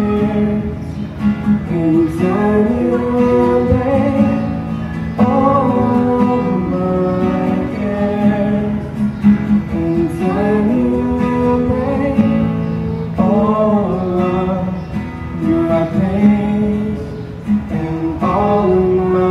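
Acoustic guitar played live with singing over it.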